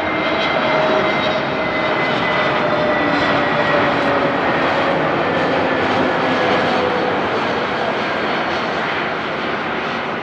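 Airbus A320 jet landing: a loud, steady jet engine roar with whining tones that slowly fall in pitch as it passes, easing off slightly near the end.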